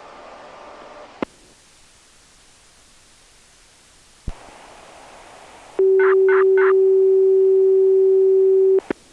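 Analog disaster-prevention radio signal: a click and low hiss, then a loud steady tone with three short higher beeps over its start. The tone cuts off abruptly with a click near the end.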